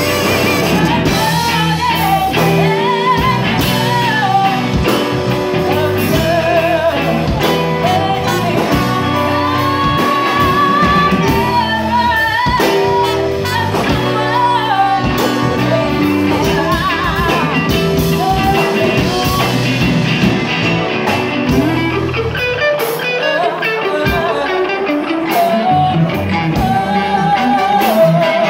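Live band playing: a woman singing lead over drums and bass guitar, with trumpet and saxophone.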